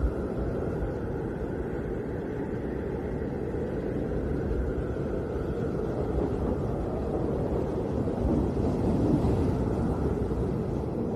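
Snowstorm wind blowing steadily as a low, deep rush, swelling in a gust about eight to nine seconds in.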